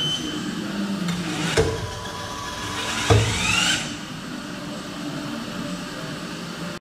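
Bench-top plastics-processing machine with clamping jaws running: a steady mechanical noise, a knock about a second and a half in and another about three seconds in, then a rising whine just after the second knock.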